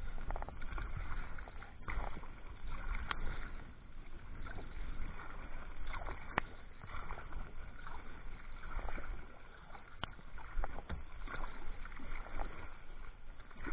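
Sea kayak moving through water in pouring rain: a steady wash of splashing and rain noise, with a few sharp taps.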